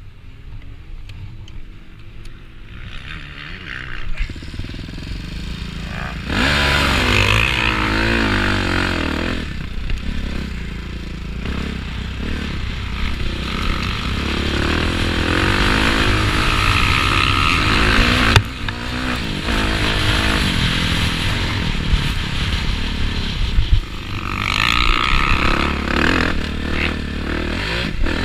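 Motocross bike engine ridden hard, heard from the rider's helmet camera. It runs quieter for the first few seconds, then opens up about six seconds in, revving up and down through the track with wind noise over the microphone.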